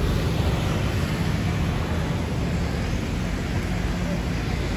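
Steady street-traffic noise: scooter and car engines running and passing, a constant low rumble.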